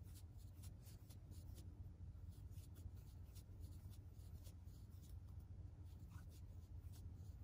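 Near silence with faint, quick, irregular scratchy ticks of a crochet hook pulling yarn through loop after loop as a foundation chain is made, over a low steady hum.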